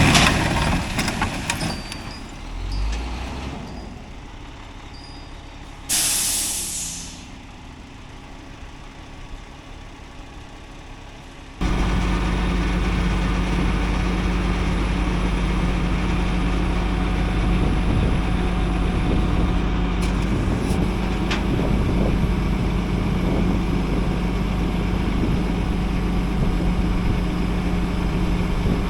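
Heavy 6x6 rollback tow truck: a short hiss of released air from its brakes about six seconds in. About halfway through, a steady loud engine drone with a constant low hum cuts in and runs on.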